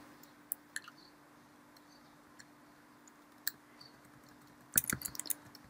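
Keystrokes on a computer keyboard: a few single, spaced-out taps, then a quick run of several keys near the end. A faint steady hum sits underneath.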